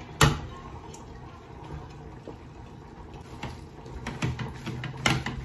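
A sharp knock of a pan against the rim of an aluminium pot as cooked ground beef is scraped into it with a silicone spatula. Then soft scraping as the spatula stirs the beef into mashed potato in the pot, with a few louder knocks near the end.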